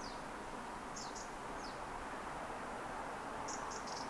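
Faint bird chirps over a low steady outdoor background: a few quick chirps falling in pitch in the first two seconds, then a short run of rapid high notes near the end.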